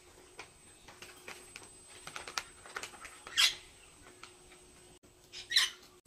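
Red-winged parrot chattering in short, soft clicking notes, then giving two loud, harsh squawks, one about three and a half seconds in and one near the end.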